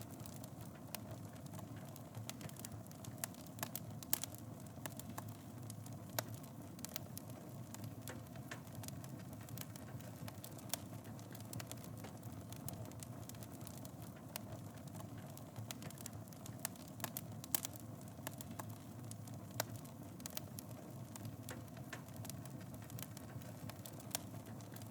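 Wood fire burning in a fireplace: a steady low rumble of flames with frequent irregular crackles and occasional louder pops.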